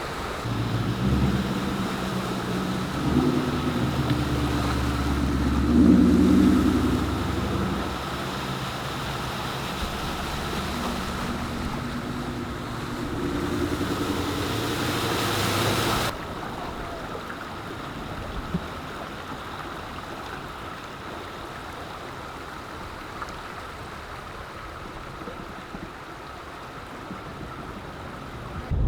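An engine runs low and unevenly for about sixteen seconds, under a wash of water or wind noise. Then, after an abrupt cut, only the steady, quieter rushing noise remains.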